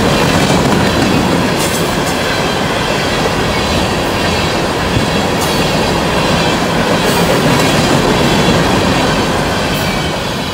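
Empty BNSF taconite ore cars rolling past close by: a steady rumble and clatter of steel wheels on the rails, with a few brief high squeaks, starting to fade at the very end.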